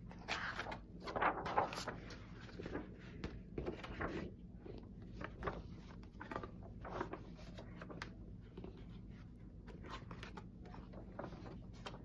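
Rustling, scraping and soft knocks from something being handled, loudest and busiest in the first two seconds, then scattered short rustles.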